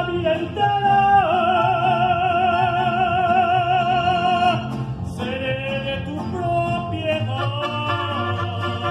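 Male mariachi singer belting a ranchera over a mariachi band. He holds one long note with wide vibrato for about three seconds, breaks off, then goes into another sustained phrase.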